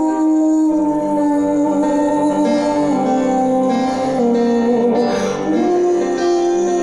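Live performance of a pop ballad in a passage without lyrics: a melody of long held notes stepping from pitch to pitch over the accompaniment.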